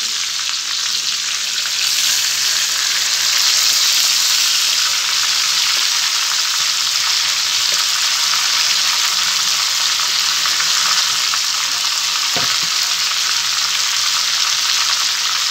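Spice-marinated chicken pieces sizzling as they fry in hot oil in a steel kadai: a steady hiss that grows a little louder about two seconds in. A light knock sounds near the end.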